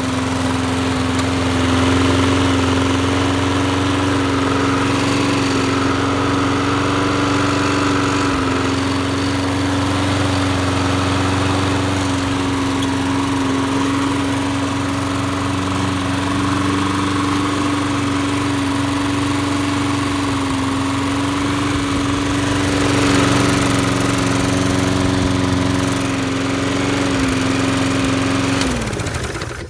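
Briggs & Stratton Quantum 35 single-cylinder four-stroke lawn mower engine running steadily at speed. About a second before the end it is shut off and winds down to a stop.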